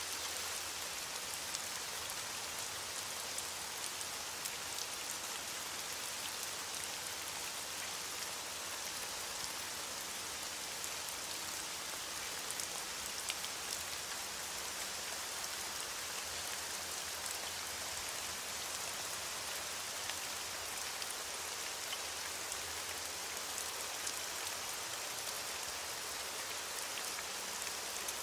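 Steady rainfall with many fine drops pattering on a surface, an even hiss with no let-up.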